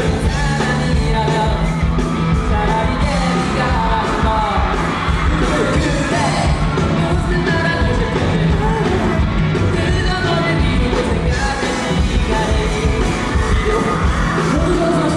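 Live pop-rock band music with singing, an electric bass in the mix.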